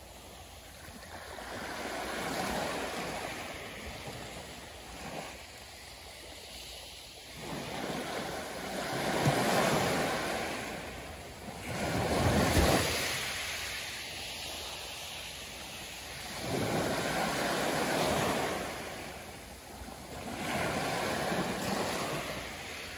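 Small waves lapping and washing in at the edge of a calm sea. Each wash swells and fades over a few seconds, and the loudest come about halfway through.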